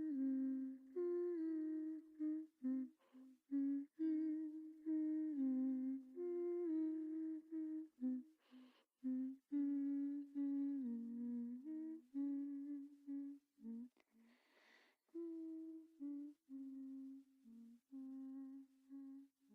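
A woman's voice humming a slow, lullaby-like melody, one held note after another, with a breath drawn twice along the way.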